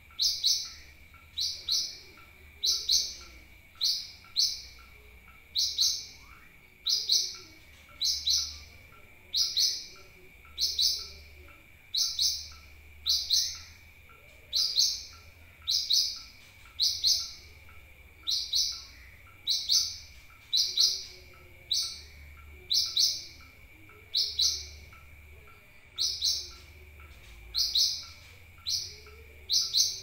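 Sunbird call: short, sharp, high chirps repeated steadily about once a second, often in quick pairs, used as a lure call to get a caged sunbird singing. A faint steady high tone runs underneath.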